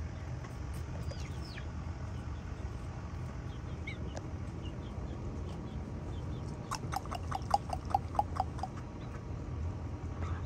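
Domestic fowl calling: a rapid run of about a dozen sharp calls, some six a second, lasting about two seconds, beginning about two-thirds of the way in. A few faint high chirps come earlier, over a steady low rumble.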